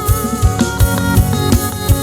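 Live band playing: guitar and other pitched instruments holding chords over a steady kick drum beating about three times a second.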